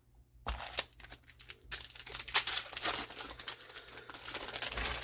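Foil booster-pack wrapper being torn open and crinkled by hand: a dense run of crinkling and tearing that starts about half a second in and keeps going.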